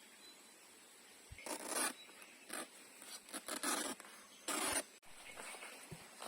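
Several short scraping strokes in a row, the longest two lasting about half a second each.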